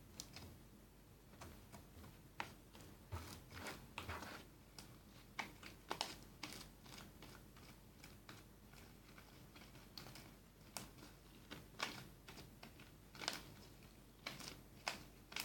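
Faint, irregular sticky clicks and crackles of freshly made glitter-glue slime being handled and worked by hand.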